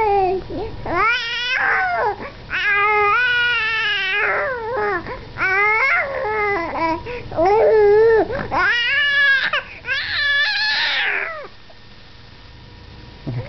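A baby making cat-like mewing cries, her way of asking for milk. A string of drawn-out, high-pitched calls bends up and down in pitch and breaks off about two seconds before the end.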